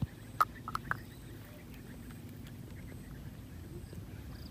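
Four short, sharp squeaky sounds within the first second, the loudest about half a second in, over a steady low outdoor rumble.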